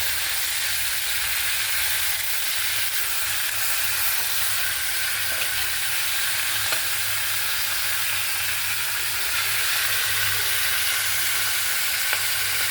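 Hilsa fish head frying in hot oil in a pan: a steady sizzle, with a few faint ticks.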